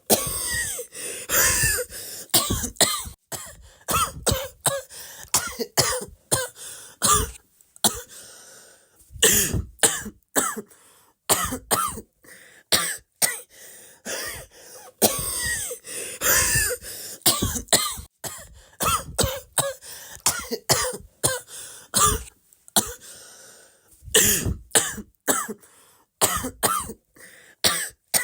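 A person coughing over and over, in fits of many short, quick coughs, with brief pauses of about a second between some fits.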